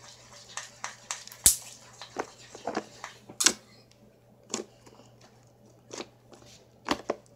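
Slime being squished and poked by hand, giving irregular short wet pops and clicks.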